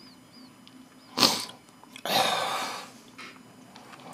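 A man's loud breathing between sentences: a short, sharp intake about a second in, then a long, breathy exhale that starts suddenly and fades away.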